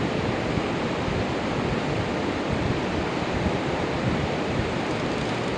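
Steady, loud rushing of water, an even roar that drowns out much else.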